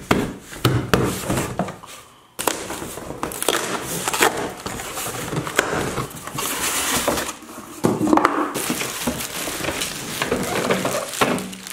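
Hands tapping on a cardboard box, then cardboard scraping and rustling as the box is opened and an inner box is handled. Near the end, plastic wrap crinkles as a suitcase is lifted out.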